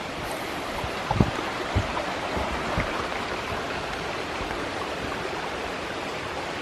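Rushing water of a mountain stream, a steady noise with a few low thumps in the first few seconds.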